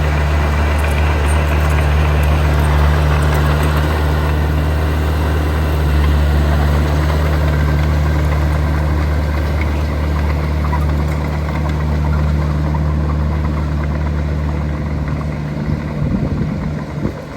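Heavy diesel engine of earthmoving machinery running steadily with a deep, even drone. About fifteen seconds in, the lowest part of the drone fades and the engine sound becomes more uneven.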